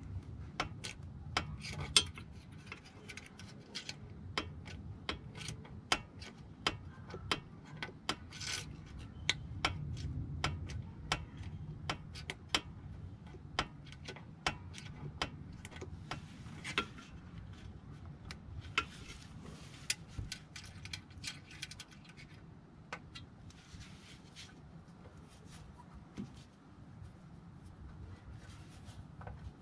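Hand tools and metal parts being worked: many irregular sharp clicks and taps, with a few short stretches of scraping.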